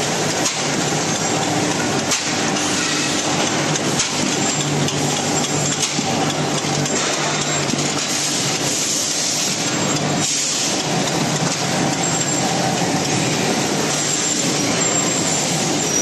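Welded-pipe mill line running, a steady loud industrial machinery noise with a continuous hum and a few scattered faint knocks.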